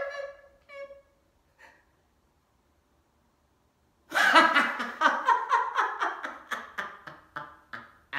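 A man's wordless vocalizing: a pitched cry trails off in the first second, then after a pause a run of rapid breathy, laugh-like pulses, about four a second, fading toward the end.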